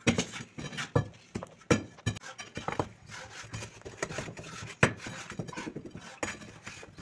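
Irregular sharp knocks and clatter of building work, several a second, with a few louder strikes.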